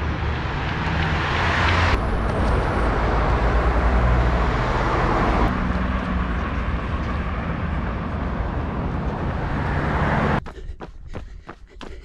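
Steady road traffic noise from cars passing on a city road. About ten seconds in it cuts to a runner's footsteps on a gravel trail, about three steps a second.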